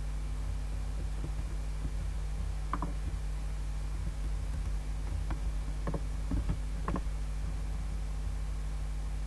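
Steady electrical mains hum from the recording setup, with about six soft clicks of a computer mouse and keyboard between about three and seven seconds in.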